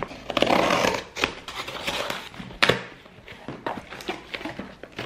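A cardboard parcel being opened by hand: a rip of packing tape being pulled off near the start, then a few sharp knocks and rustles of cardboard flaps as the box is opened and the item lifted out.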